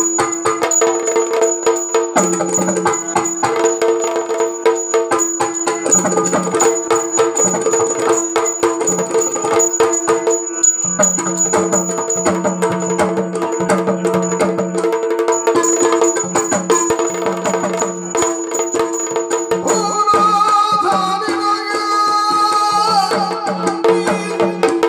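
Yakshagana percussion: two chande drums beaten with sticks in a fast, dense rhythm, over a steady held drone. For the last few seconds a higher pitched line joins in.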